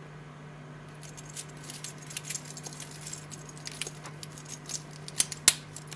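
Stainless steel watch bracelet links clinking and rattling as the watch is handled onto a wrist, ending in two sharp clicks a little past five seconds as the folding clasp is snapped shut.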